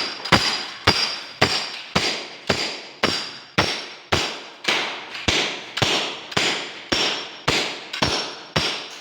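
Hammer blows struck at a steady pace of about two a second, each a sharp crack with a brief metallic ring.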